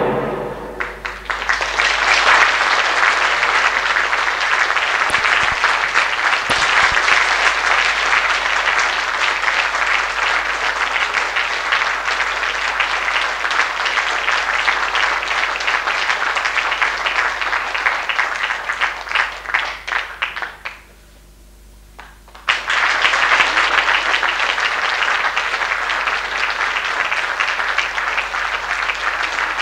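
Audience applauding at a curtain call, a dense, steady clapping. It cuts off abruptly about two-thirds of the way through and resumes about a second and a half later.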